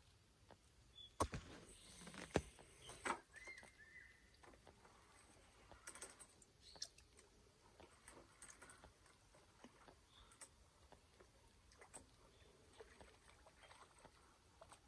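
Near silence broken by scattered sharp clicks and taps from a long fishing pole being handled, the two loudest a little over a second and about two and a half seconds in.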